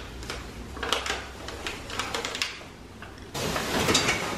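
Pleated paper blinds crinkling and rustling as they are handled and pressed back up against the window, with scattered sharp paper crackles and a louder stretch of rustling near the end. The blinds are coming unstuck because their adhesive strip was not left to set.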